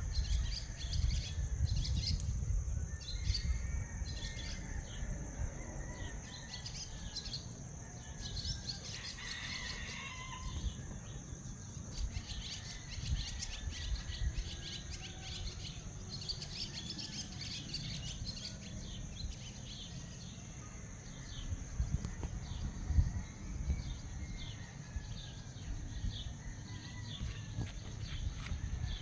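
Birds chirping and calling in a dawn chorus, many short chirps throughout, over a steady high insect-like drone and a low rumble underneath.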